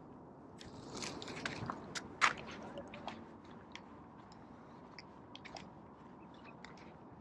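Close crunching and clicking, like feet shifting on sand and gear being handled. It is busiest and loudest between about one and two and a half seconds in, then thins to scattered clicks.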